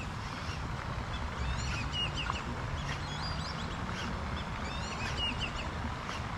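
Birds calling with many short, high chirps and squeaky notes, one after another, over a steady low rumble.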